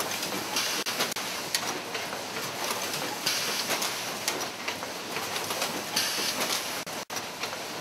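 Automatic disposable-needle assembly machine running, with a steady, rapid mechanical clatter of many small clicks from its feeding and transfer mechanisms. Short pneumatic air hisses swell up every couple of seconds.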